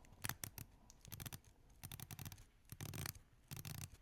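Seiko King Turtle dive watch bezel being turned by hand, clicking through its detents in several short runs of quick, soft clicks. The clicks are very muted.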